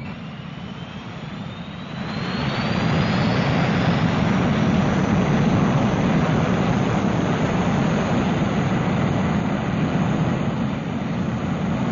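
Jet aircraft engine noise: a steady, heavy rush with a thin high whine that climbs in pitch over the first few seconds. It grows louder about two seconds in and then holds.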